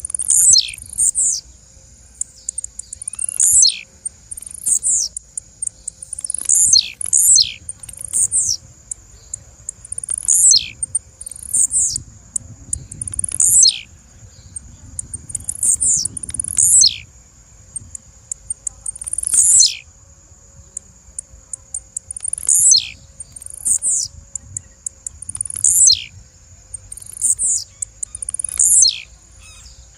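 Blue-black grassquit (tiziu) calling over and over: short, sharp notes that sweep down in pitch, one every one to three seconds and often in pairs, with fine high ticks between them. A faint steady high whine runs underneath.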